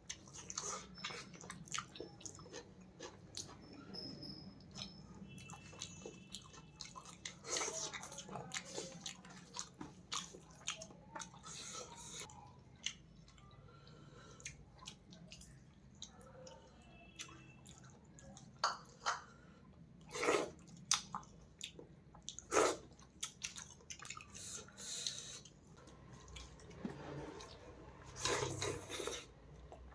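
Close-up eating sounds of fish and rice: wet chewing, lip-smacking and mouth clicks going on throughout, with a few louder smacks in the last third.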